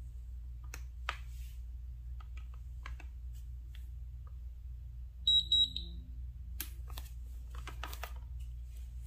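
Digital glass bathroom scale beeping, a quick run of high beeps about five seconds in, the signal that the weight reading has locked in. Soft taps and clicks of bare feet and fingers on the glass platform come before and after, over a low steady hum.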